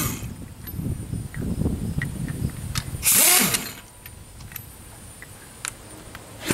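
Impact wrench on a car wheel's lug nut, one short burst about three seconds in as it loosens the nut, its whine falling in pitch as it spins down. A few light clicks sound around it.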